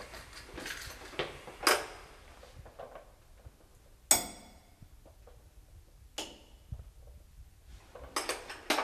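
Metal hand tools clinking and knocking: against the washbasin tap and rattling in an open toolbox. A few separate sharp metallic knocks with a short ring, the loudest about four seconds in, and a quick run of clinks near the end.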